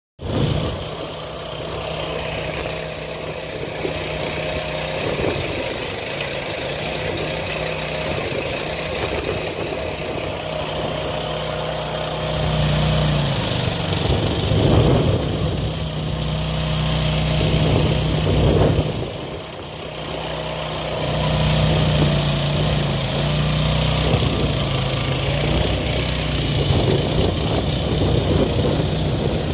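AGROTK H15 mini excavator's engine running steadily. From about twelve seconds in it gets louder and works harder in stretches while the hydraulic arm digs the bucket into gravel, easing off briefly around twenty seconds.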